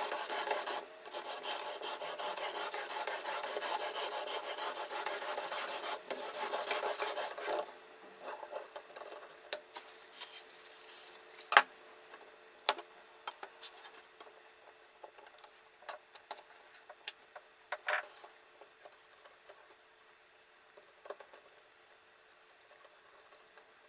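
The sharpening stone on a guided fixed-angle knife sharpener is rubbed along a clamped steel knife blade in fast, continuous strokes, a steady scraping that stops about seven and a half seconds in. After that come scattered light clicks and knocks as the sharpener is handled and the knife is taken out and clamped again.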